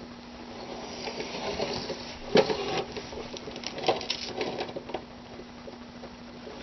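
Masking tape being pulled and pressed onto a container: rustling and crinkling with two sharp snaps, over a steady low hum.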